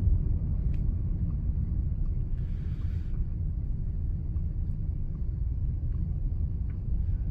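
Low, steady rumble of a car's engine and tyres heard inside the cabin while driving, with a brief hiss about two and a half seconds in.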